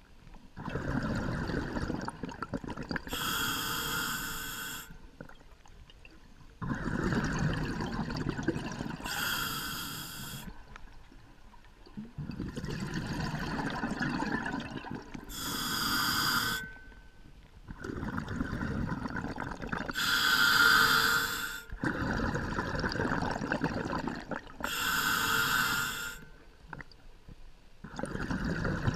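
Scuba diver breathing through a regulator underwater. There are about five slow breaths, each a long stretch of bubbling from the exhale followed by a shorter hiss from the inhale.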